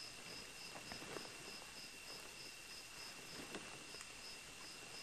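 Faint room tone in a pause of a recorded talk: steady hiss with a faint high-pitched tone that pulses evenly, and a few faint clicks.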